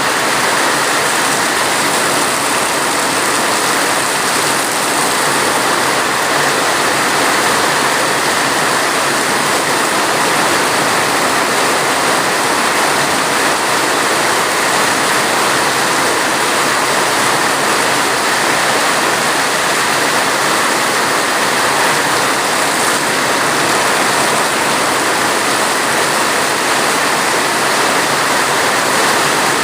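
Steady heavy rain: a dense, even hiss of water that runs on without a break.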